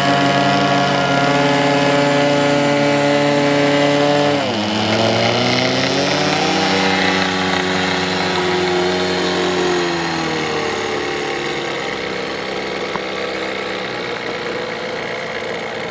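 Small engine of a radio-controlled model airplane running at high revs. Its pitch drops sharply about four seconds in and climbs again, then falls after about ten seconds as the sound slowly fades.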